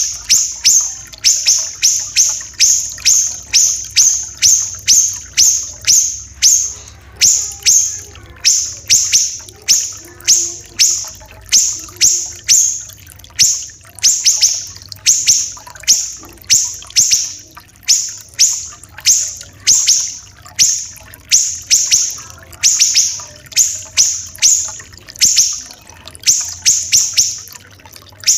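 Siri-siri kecil songbird calling in a rapid, unbroken run of sharp, harsh high notes, about two a second, now and then bunched closer together with brief pauses between runs.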